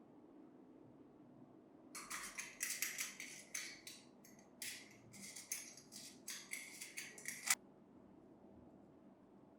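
A run of about a dozen short rasping strokes of a hand tool working on the piece, starting about two seconds in and ending with a sharp click.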